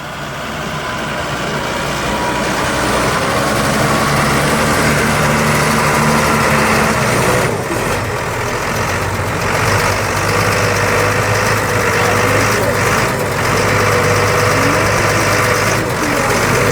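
Heavy farm tractor engine running steadily, growing louder over the first few seconds, its pitch dropping a little before halfway through.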